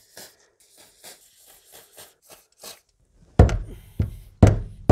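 Quick rhythmic rubbing strokes, about four a second, as lubricant is worked onto the fuel pump locking ring. From about three and a half seconds in, a series of heavy knocks about half a second apart, much louder than the rubbing.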